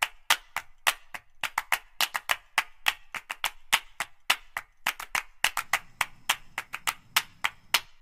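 Rapid, irregular series of sharp percussive clicks, several a second.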